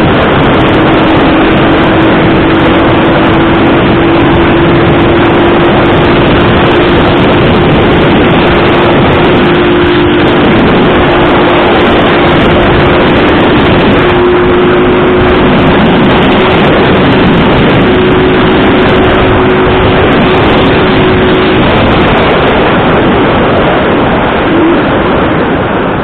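A road vehicle on the move: loud, steady wind and road roar, with a steady engine tone under it that stops a little over three-quarters of the way through.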